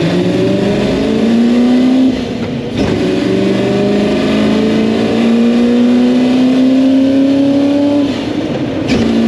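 Ford GT40 Mk1's 4.9-litre V8 accelerating hard through the gears, its pitch climbing in each gear, with an upshift about two seconds in and another about eight seconds in. Heard from the cockpit in a road tunnel.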